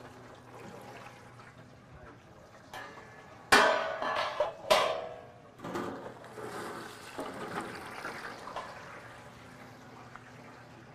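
Frozen fries going into 350 °F oil in electric commercial deep fryers: a sudden loud sizzle about three and a half seconds in, surging again about a second later, then a bubbling hiss that slowly dies down.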